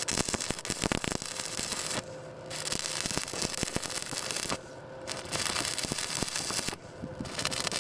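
Electric welding arc crackling and spitting in runs of about two seconds, each broken off briefly before the arc is struck again.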